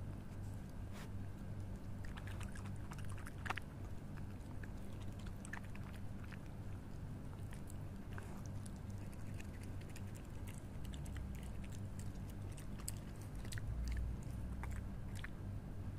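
A wild canid eating soft cooked pasta off pavement: intermittent wet chewing and small clicking bites, over a steady low hum.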